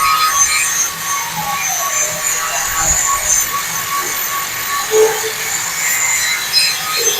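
Angle grinder grinding steel: a steady, harsh high hiss with thin whining tones, one of which drops in pitch briefly about a second in.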